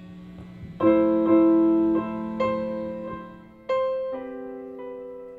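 Keyboard playing a slow series of sustained chords, each struck and left to ring and fade, as a band starts a song from the top. A low steady hum sits under it at the start, before the first chord about a second in.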